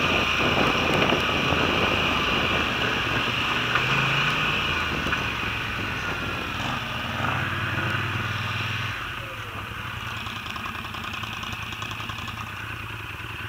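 ATV (quad) engine running over a rough dirt trail, then easing off to a quieter, steadier idle about nine seconds in as the machine slows and stops.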